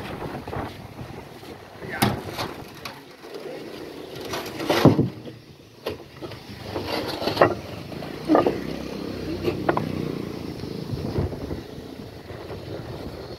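Natural stone slabs knocking against each other as they are lifted off a stack in a lorry bed: a scattering of sharp stone-on-stone clacks, among workers' voices.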